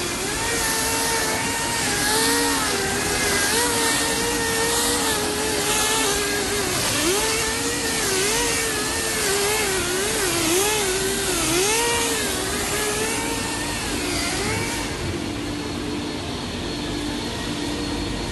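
Veneer mill machinery running: a steady rushing hiss with a whine that wavers up and down in pitch. The hiss drops away about fifteen seconds in, leaving a lower hum.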